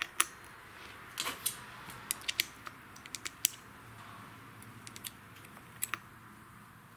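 Sharp, irregular metallic clicks and clinks of small chainsaw clutch parts being handled and fitted, as the chain sprocket of a Stihl 026 goes back onto the crankshaft against the clutch drum.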